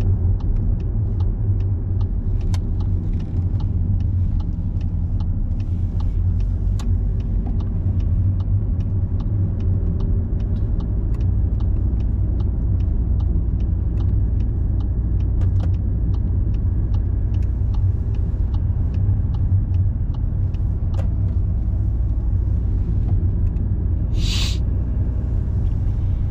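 Steady low rumble of engine and road noise heard inside a moving car's cabin. Through the first half there is a faint, regular ticking from the turn indicator. Near the end comes one short hiss.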